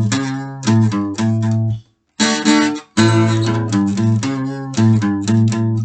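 Strummed acoustic guitar chords in an instrumental break, cutting to silence briefly twice, about two and three seconds in.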